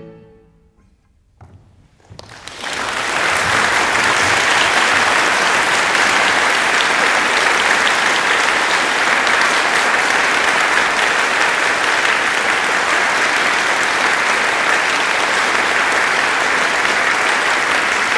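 The last chord of a classical guitar dies away, then a few scattered claps about a second and a half in grow within a second into full audience applause that carries on steadily: a concert audience applauding at the end of a piece.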